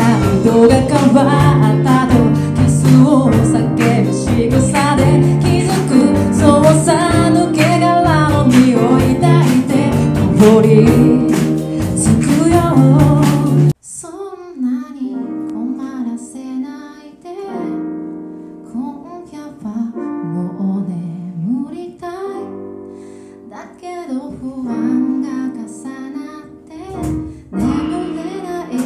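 Live band music: a woman singing over electric guitar, bass, drums and a horn section in an upbeat song. About 14 seconds in it cuts off abruptly into a much quieter song, her voice over keyboard chords with light accompaniment.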